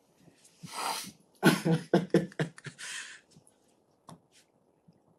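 Indistinct human vocal sounds: a breathy burst about a second in, then a quick string of short voiced sounds and a hissing breath.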